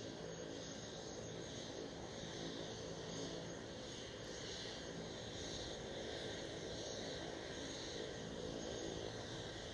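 De Havilland DHC-3 Otter floatplane's engine and propeller running steadily at a distance, a hum with a slow, even waver.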